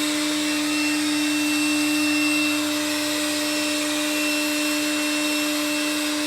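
A vacuum motor running steadily, with a constant hum and a hiss of airflow.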